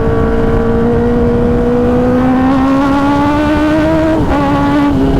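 Kawasaki Ninja ZX-10R inline-four with an SC-Project titanium full exhaust system, heard from the saddle under hard acceleration on the road; very loud. The engine note climbs slowly for about four seconds, then drops with an upshift and settles lower.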